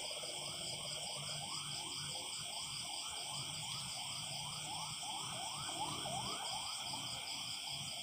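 Night chorus of crickets and frogs: a steady high insect trilling, with a frog calling in a rapid series of short rising notes, about four a second.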